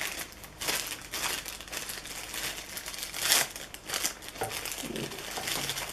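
Blind-box packaging being opened by hand: a wrapper crinkling and rustling in irregular bursts, loudest about three seconds in.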